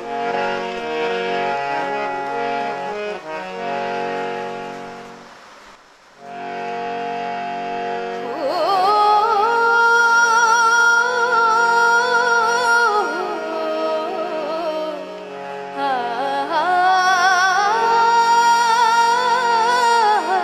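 Harmonium playing sustained chords, fading out briefly about six seconds in and then coming back. From about eight seconds a woman sings long held notes with vibrato over the harmonium drone, breaking off briefly before starting a new phrase.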